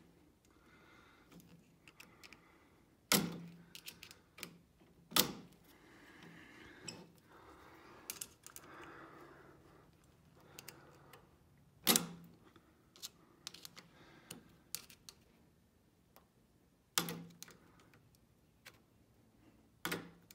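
Flathead screwdriver prying at a steel E-clip on the front wheel pivot of a Troy-Bilt walk-behind mower: about five sharp metal clicks a few seconds apart, with lighter ticks and scraping between, as the stubborn retaining ring is worked loose.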